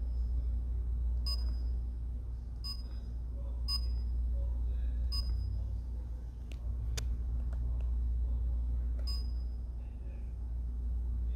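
Sharp MX-2640 copier's touch panel beeping at key presses: five short high beeps at uneven intervals, with a couple of sharp clicks midway, over a steady low hum.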